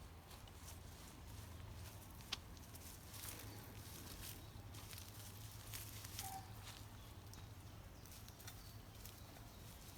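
Faint footsteps on a walk, scattered light clicks and scuffs over a low steady hum, with one brief chirp about six seconds in.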